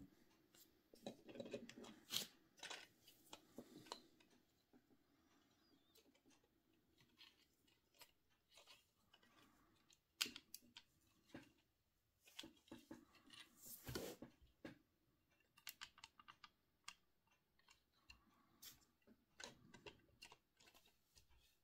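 Faint, irregular clicks and taps of a small 3D-printed plastic model tractor being picked up and turned over in the hands, its parts knocking lightly, with a few sharper knocks.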